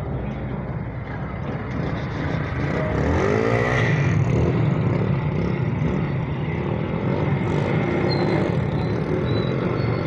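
Motor vehicle engine running, a low rumble that grows louder about two seconds in, with a brief shift in pitch around three seconds in.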